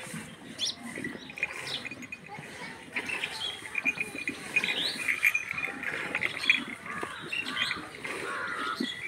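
Birds chirping repeatedly, over the soft rhythmic squirts of milk from a cow's teats into a small plastic bucket during hand milking.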